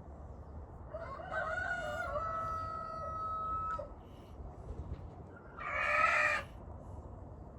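Rooster crowing: one long crow about a second in, lasting nearly three seconds and ending on a held note, then a shorter, louder call a little before the end.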